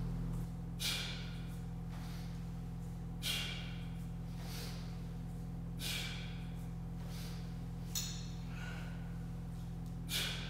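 Sharp, forceful breaths from a man doing one-arm kettlebell snatches, five of them about two seconds apart, one with each rep. A steady low hum runs underneath.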